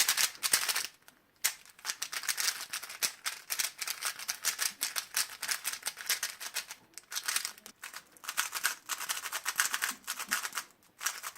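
Plastic 3x3 speed cube fitted with swapped springs, turned rapidly by hand: quick runs of clicking layer turns with two short pauses, one about a second in and one near the end.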